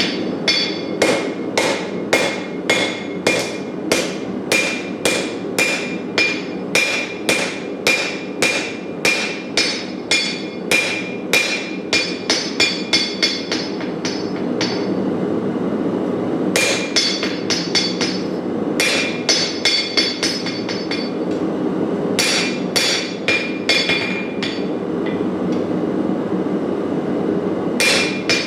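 Hand hammer striking a hot Damascus steel billet on an anvil, each blow ringing, about two a second for the first half. After a short break come several quick flurries of lighter strikes. A propane forge burner runs steadily underneath.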